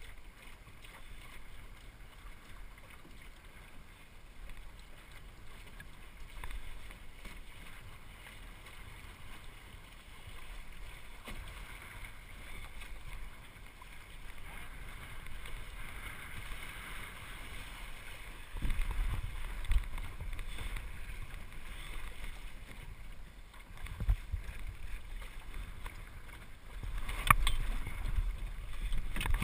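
Water washing along the hull of a small El Toro sailing dinghy under sail. Wind buffets the microphone in gusts through the second half, and there is a sharp knock near the end.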